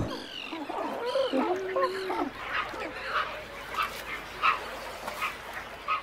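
Great white pelicans calling in a breeding colony. A few pitched, wavering calls come in the first two seconds, followed by shorter, fainter calls repeating about every half second.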